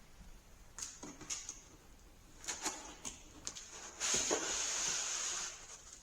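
Cardboard box and packaging being handled while a light fixture is unboxed: several short scrapes and taps, then a longer, louder rustling scrape about four seconds in.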